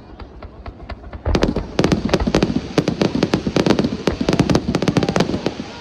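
Fireworks bursting in a rapid barrage of sharp bangs and cracks. It is sparser at first, becomes a dense volley about a second in, and dies away near the end.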